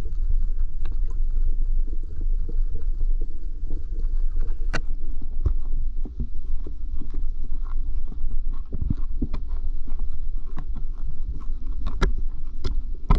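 Muffled underwater rumble picked up by a GoPro in its waterproof housing, with scattered sharp clicks and knocks, a cluster of them near the end.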